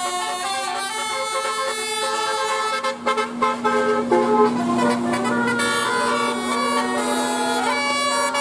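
Bus 'telolet' multi-tone air horn playing a melody of quick stepping notes over a steady low held tone. The tune breaks off about three seconds in and a different one starts.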